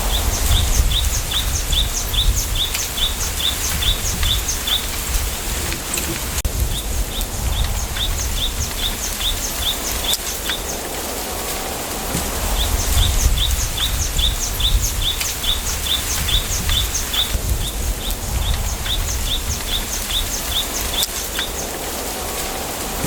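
Wind rustling through bamboo with a low rumble underneath, while a bird repeats a short high note about four to five times a second in runs of a few seconds, four runs in all.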